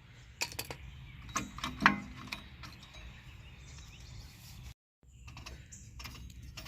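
Metal clicks and clinks of rear drum-brake return springs and shoes being worked off with needle-nose pliers: a few sharp clicks in the first two seconds, then quieter handling. The sound drops out briefly near five seconds in.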